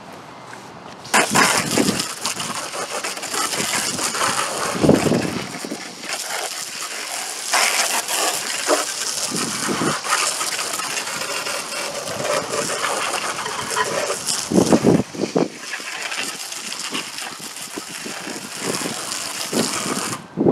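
Garden hose spray hitting the top of a push lawn mower, water splashing and drumming on the engine shroud and deck as it is rinsed off. The spray starts about a second in and swells and eases as the stream is moved around.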